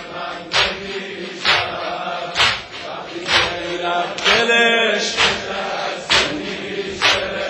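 Mourners' rhythmic chest-beating (sineh-zani) in unison, about one beat a second, under a chanted Persian noha lament. A man's voice holds a sung note about four seconds in.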